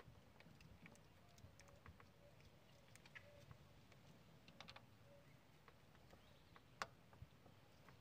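Near silence, with faint, scattered clicks of a multitool's hex key and fingers on the bolts of a mountain bike stem's faceplate as the hardware is loosened, and one sharper click about seven seconds in.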